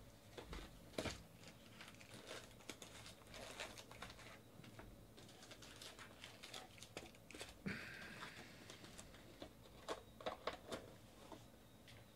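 Faint handling of a cardboard trading-card box and its packs: the box rustling as it is opened, and the card packs crinkling and tapping as they are pulled out and set down in stacks.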